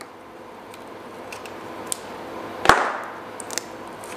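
Bicycle chain quick link being squeezed open with master link pliers: a few small metallic clicks, then one sharp snap about two-thirds of the way through as the link gives way.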